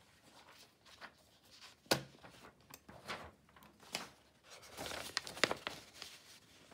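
Sheets of squared paper rustling as they are swapped and laid flat on a desk, with a sharp tap about two seconds in and a longer stretch of rustling near the end.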